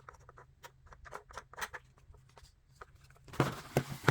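Faint clicks and taps of small plastic toy pieces and packaging being handled, then much louder rustling and crinkling of the packaging with sharp clicks from about three and a half seconds in.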